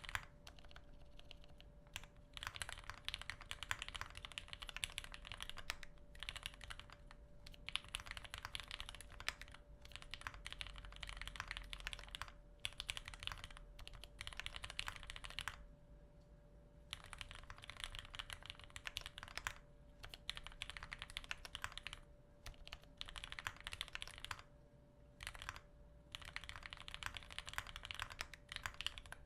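Typing on a TX-65 65% custom mechanical keyboard with a brass plate and doubleshot keycaps: a steady stream of keystrokes with a few short pauses. It is a soft, mellow clack, likened to wet gravel, quiet and without hollow case ring.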